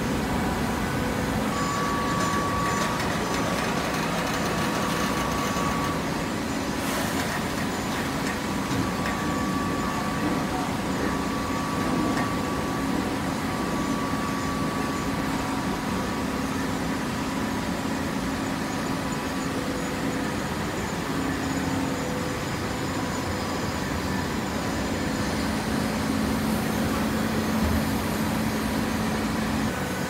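Horizontal hydraulic baler running: a steady mechanical drone with a low hum and a faint higher whine that comes and goes.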